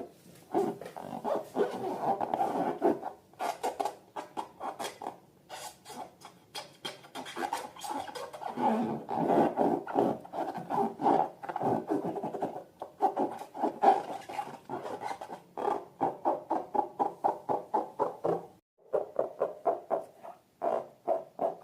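Rubber balloons squeaking and rubbing as they are handled, in rapid runs of short squeaks with brief pauses.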